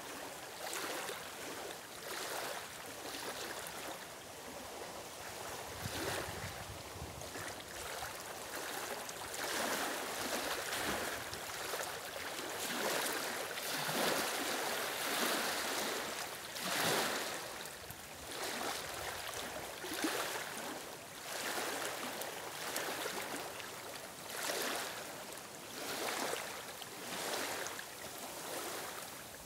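Small waves lapping against a stony lake shore among reeds, coming in uneven washes every second or two.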